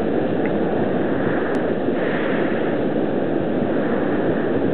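Steady rushing noise of wind on the microphone mixed with surf.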